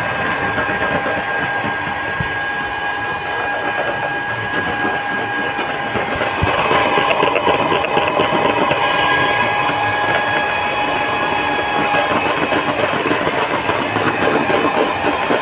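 Electric hand mixer running at speed, its motor whining steadily while the beaters rattle in a plastic tub, whisking egg whites into foam. It gets a little louder about halfway through.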